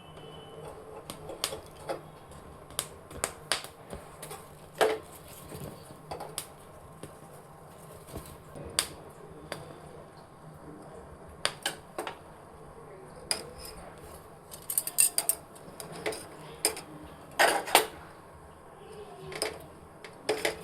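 Kitchen utensils clinking and knocking in an irregular series of sharp clicks, busier and louder in the second half, over a faint steady hum.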